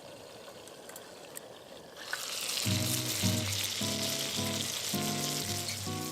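Food sizzling in a hot sandwich maker, the sizzle starting about two seconds in after a few faint clicks. Background music comes in just after it.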